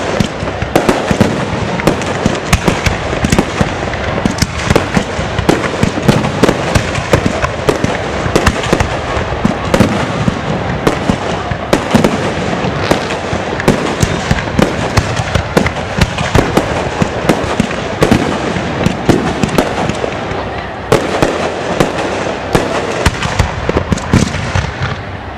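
Fireworks display: aerial shells and firecrackers bursting in a rapid, unbroken barrage of sharp bangs and crackles, several every second.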